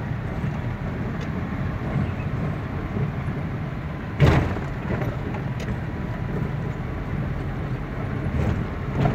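Car cabin noise while driving: steady engine and tyre rumble, with one sharp knock a little over four seconds in.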